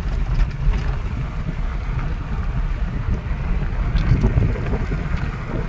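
Wind buffeting the microphone over the steady low rumble of a moving vehicle.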